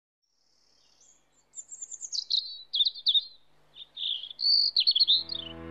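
A songbird chirping and twittering in quick high phrases, with music starting to fade in near the end.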